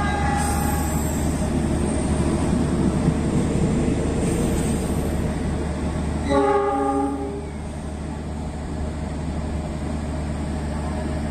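Train horn: a brief toot at the start and a louder blast of about a second some six seconds in, over a steady low rumble from a diesel-electric locomotive's engine.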